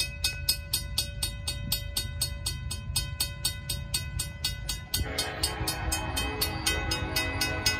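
Railroad crossing bell ringing steadily at about four to five strokes a second over a low rumble. About five seconds in, the approaching Norfolk Southern locomotive starts sounding its multi-tone air horn, held to the end.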